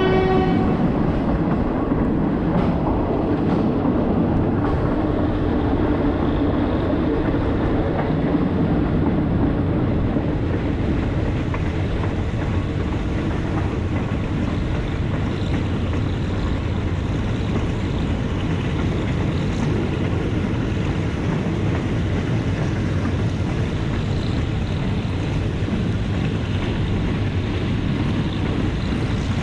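Train running steadily along the track, a continuous rumble with faint clicks, just after its horn blast cuts off about half a second in.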